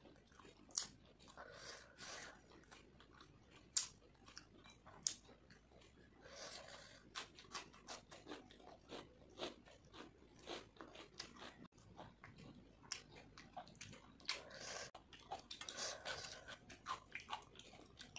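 Close-up chewing of a mouthful of fried rice and chicken curry eaten by hand: soft wet chewing with many short, sharp clicks.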